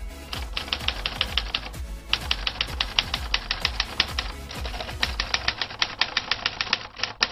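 Typewriter keys struck in quick runs of typing, about eight to ten strikes a second, with two short pauses between runs, over a low sustained music tone.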